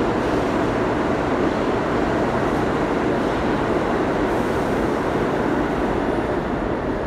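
Steady rumble of an R160 subway train standing at the station platform with its doors open, even in level with no distinct clicks or tones.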